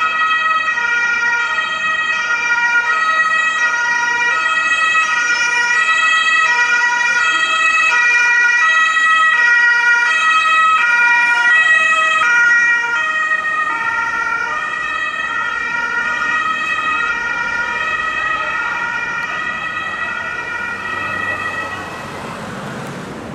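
German ambulance two-tone siren (Martinshorn) alternating steadily between two pitches as the vehicle drives past. About halfway through its pitch drops slightly and it then fades away.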